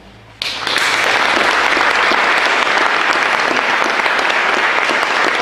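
Audience applauding, starting suddenly about half a second in as the music ends, then steady, dense clapping.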